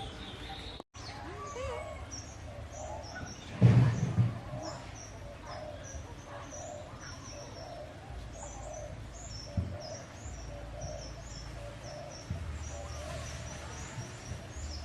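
Small birds chirping over and over with short, high calls. A loud low thump comes about four seconds in.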